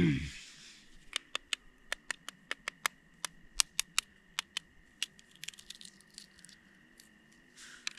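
Hard-boiled egg being cracked and peeled by hand: a run of small, sharp shell cracks and clicks, several a second, over a faint steady high tone. It opens with a brief, louder low sound that falls in pitch.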